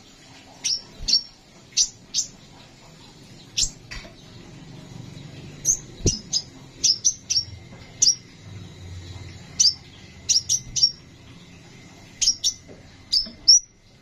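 Crimson sunbird (kolibri sepah raja) calling: about twenty short, sharp, high chirps that drop steeply in pitch, often in quick pairs or clusters at irregular intervals. A light knock comes about six seconds in.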